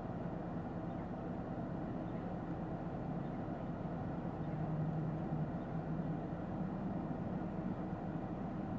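Steady in-cabin drone of a moving 2022 Lexus ES 350 F Sport: tyre and road noise under the low hum of its V6 engine, which swells slightly about five seconds in.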